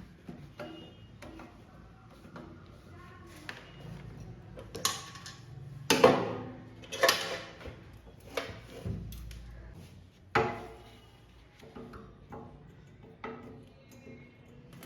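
Irregular clinks and knocks of tools and metal parts being handled, several sharp ones standing out, over faint background music.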